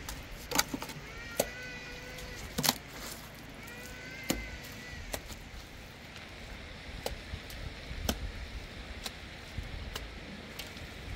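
Scattered sharp taps and knocks from hand work on a cinder-block and cement wall, about one a second, over a faint low rumble. Two brief squeaky tones come in the first half.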